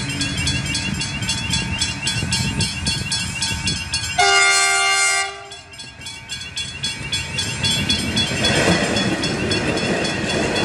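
Level crossing bells ringing in a fast, even pattern while diesel railcars run past, their rumble growing louder from about eight seconds in. About four seconds in, a train horn sounds once for about a second.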